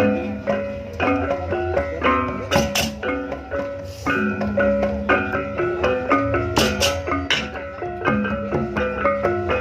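Background music: a melody of plucked-string and mallet-percussion notes over a steady beat.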